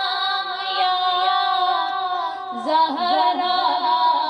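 A boy singing a naat, the devotional Urdu chant sung by voice alone. He holds long notes, then about two and a half seconds in breaks into a lower, wavering ornamented phrase.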